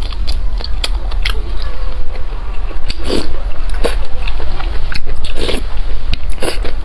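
Close-miked eating: biting and chewing with many small crisp clicks, and two louder mouthfuls about three and five and a half seconds in. A steady low hum runs beneath.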